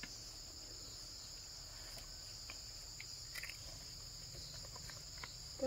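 Steady high-pitched insect chorus, with a few faint clicks and knocks.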